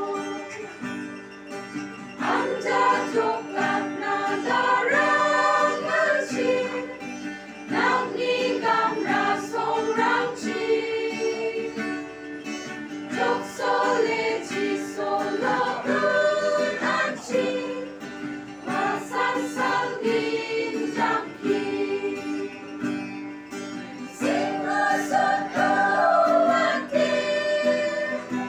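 Church choir singing a hymn together, mostly women's voices, in continuous sung phrases.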